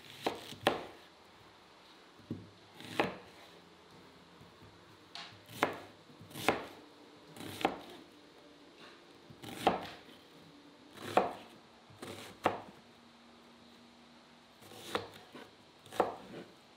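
Knife chopping food on a cutting board: about a dozen single, sharp strokes at an uneven pace, mostly a second or more apart.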